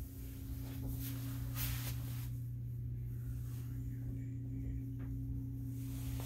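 Steady low hum of a 20-year-old single-stage 80% efficiency furnace running, with a few short bursts of hiss between about half a second and two seconds in.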